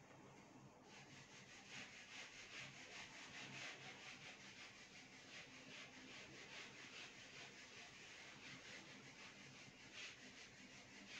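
A duster rubbing marker writing off a whiteboard in quick back-and-forth strokes: a faint, scratchy swishing that starts about a second in.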